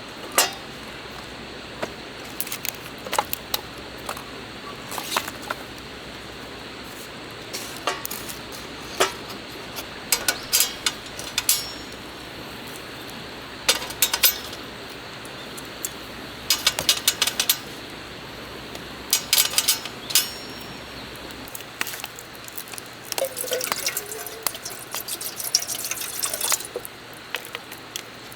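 Intermittent clicks, clinks and knocks of camp cooking gear being handled, some in quick clusters, over a steady faint hiss, with a busier stretch near the end.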